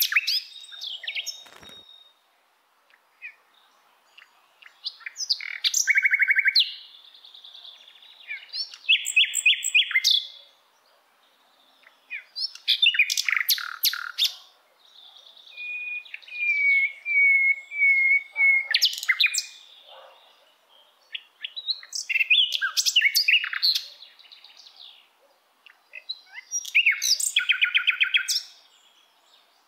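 A small songbird singing in short phrases of rapid chirps and trills every few seconds, with one longer warbling phrase near the middle.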